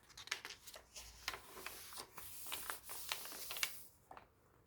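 Paper pages of a handmade junk journal being handled and unfolded: rustling with small crisp crinkles and taps, stopping about four seconds in.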